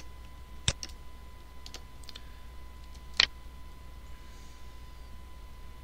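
Computer mouse and keyboard clicks: two sharp clicks about two and a half seconds apart, with a few fainter ones between, over a faint steady electrical hum.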